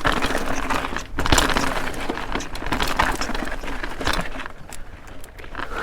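Mountain bike riding down a rough rocky trail: tyres grinding over rock, and the bike rattling, with many sharp knocks as it hits rocks. It gets quieter near the end.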